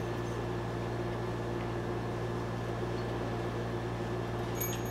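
Steady mechanical hum of room tone, like a fan or appliance running, with a faint constant whine above it. A few faint light clicks come near the end.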